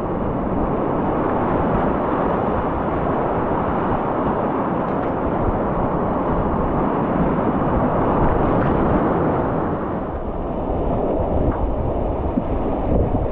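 Whitewater rapids rushing steadily, a dense, even noise of moving river water, with wind buffeting the microphone. It eases slightly about ten seconds in.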